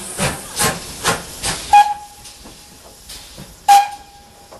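Steam locomotive pulling away, its exhaust chuffing a little over twice a second and dying away about a second and a half in. Then two short whistle blasts, about two seconds apart, the second held a little longer.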